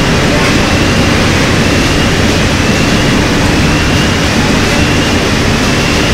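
Loud, steady industrial roar of steel-plant machinery at a ladle of molten steel under a ladle refining furnace hood. A faint whine climbs in pitch and starts over every two to three seconds.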